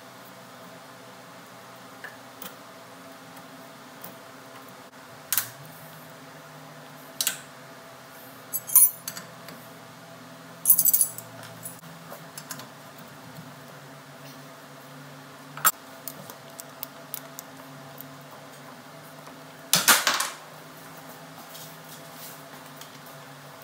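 Hand tools clinking and clanking against steel while working on a truck's front air-brake slack adjuster: several separate sharp metallic knocks, over a steady low hum.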